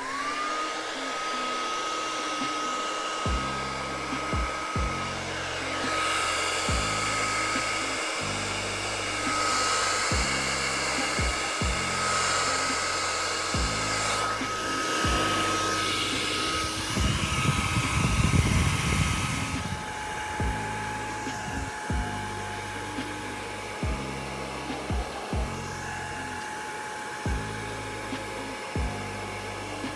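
Hair dryer switched on and running with a steady whine that drops to a lower pitch about twenty seconds in, blowing acrylic paint across a canvas. The rush of air swells and is loudest a little past the middle. Background music with a steady beat plays under it.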